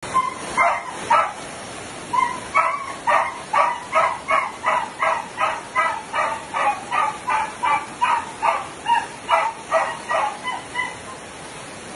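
A dog barking over and over in a steady run, about two to three barks a second, over the steady rush of floodwater.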